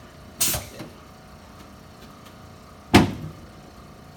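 Two sharp thuds of chiropractic adjustment thrusts on a patient's back. One comes about half a second in with a small knock after it, and a louder one about three seconds in.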